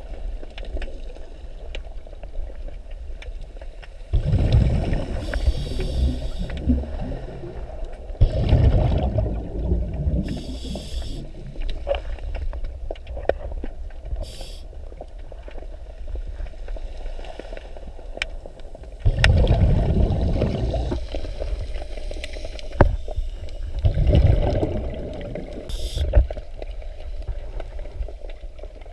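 Scuba regulator breathing heard underwater. Short hissing inhales alternate with longer bubbling rumbles of exhaled air, about four breaths in all.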